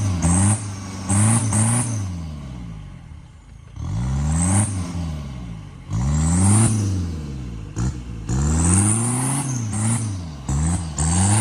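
Off-road vehicle's engine revved hard in repeated bursts, roughly every two seconds, its pitch climbing and dropping back each time, with a hiss at each peak.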